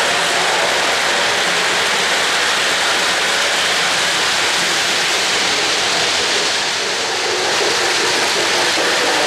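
O-gauge three-rail model trains running past close by: a steady rushing noise of metal wheels rolling on the track, with several trains passing at once.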